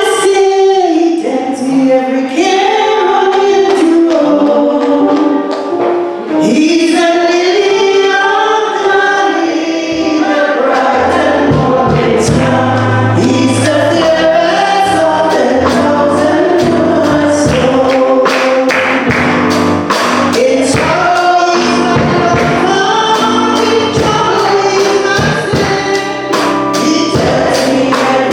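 Gospel song sung by a choir of voices, with bass and drums coming in about ten seconds in.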